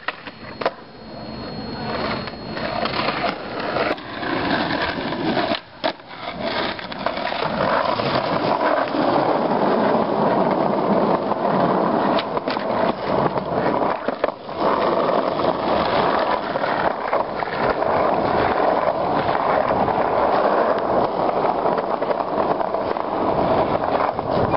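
Skateboard wheels rolling on pavement as a steady grinding noise, broken by a few sharp clacks of the board popping and landing tricks.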